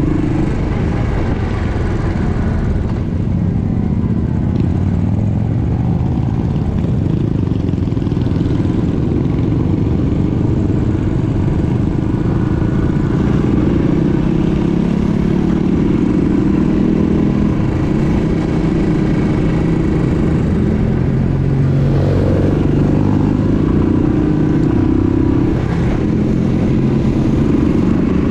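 Engine noise from a running motor vehicle, a steady heavy rumble whose pitch drifts up and down.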